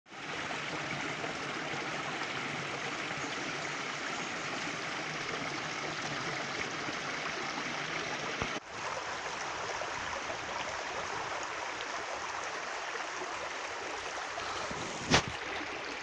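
Small mountain stream running and splashing over rocks in little cascades, a steady water sound. It breaks off for an instant about eight and a half seconds in, and a single sharp click comes near the end.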